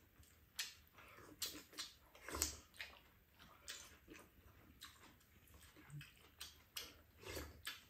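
Faint eating sounds from two people having fried rice: chewing and lip smacks, with spoons and chopsticks clicking on the bowls, a scatter of short irregular clicks.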